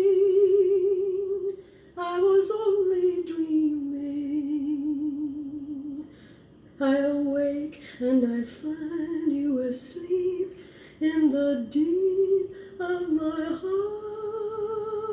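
A woman singing alone, unaccompanied, in long held notes with vibrato: a sustained note, a falling held note, a run of shorter phrases, and a long note held at the end.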